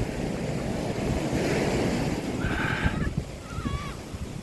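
Sea waves washing onto a beach, with wind buffeting the microphone. Two short, wavering high calls sound over it past the middle.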